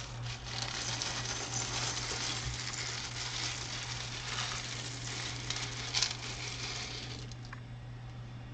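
Small plastic Lego pieces pouring and clattering out of a Pick a Brick cup in a continuous dense rattle that dies away about seven seconds in, with one sharper click near the end.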